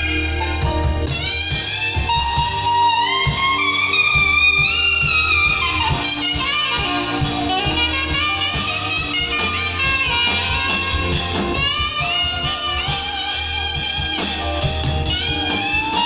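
Saxophone playing a worship melody, its notes sliding up and down with vibrato, over a steady bass backing.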